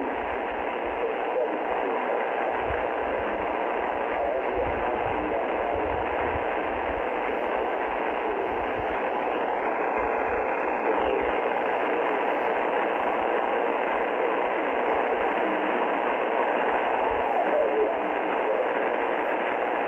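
Icom IC-R30 receiver in upper-sideband mode on 6.955 MHz giving out steady shortwave static with a weak pirate station's signal buried in the hiss. A brief high whistle comes in and fades out about halfway through.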